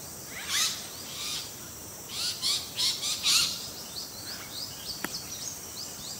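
Small monkeys making high, squeaky calls. One call comes about half a second in and another about a second later, then a quick run of several between two and three and a half seconds in. Under them are fainter rising chirps, steady hiss and one sharp click near five seconds.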